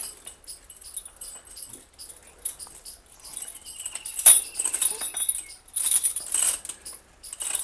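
Metal tether chain rattling and clinking in irregular bursts as a water buffalo is unhitched at its manger. The rattling is louder and busier from about three seconds in.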